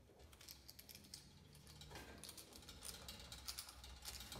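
Faint, irregular clicking and scraping of small metal parts being fitted by hand at a Coleman lantern's pump, with the pump screws being started.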